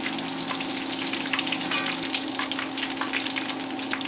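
Battered tempura vegetables deep-frying in hot oil in a wok: a dense, steady crackling sizzle, with a steady low hum underneath.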